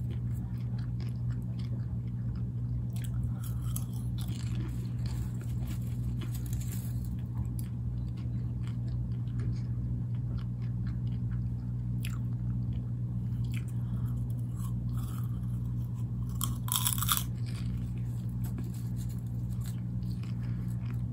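Popcorn being chewed and crunched, with short crackly bites scattered through and a brief louder rustle about 17 seconds in, over a steady low hum.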